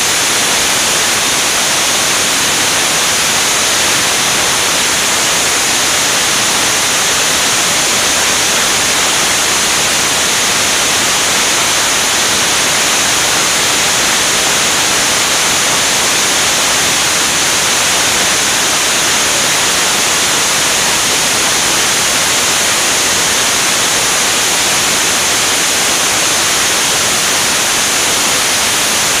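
Steady rushing wind noise over an externally mounted camera on a jet aircraft's wing in flight: a loud, unbroken hiss, strongest in the high range.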